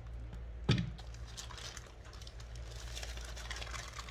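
Grey plastic poly mailer bag crinkling as it is handled and pulled open, with one thump a little under a second in.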